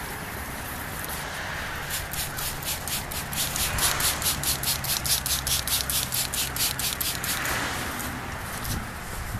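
Hand wet-sanding of a plastic headlight lens with a sanding pad: quick scratchy rubbing strokes, about six a second, begin about two seconds in and stop about two seconds before the end. Two short hisses from a trigger spray bottle wet the lens.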